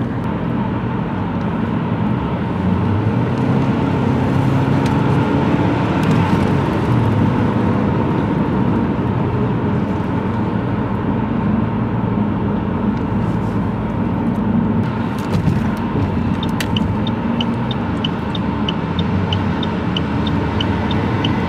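Cabin noise of a Saab 9-3 2.0L turbo driving on the highway: steady engine and road noise. A regular light ticking starts about three quarters of the way through.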